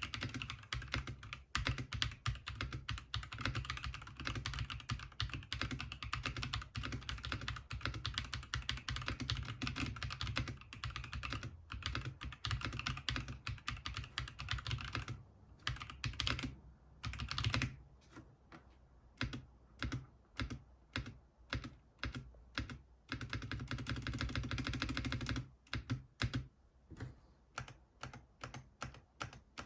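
ASUS ROG Strix Morph 96 Wireless mechanical keyboard being typed on. Fast, continuous typing for the first half gives way to separate single key presses about halfway through, then a short burst of fast typing and more spaced-out presses near the end.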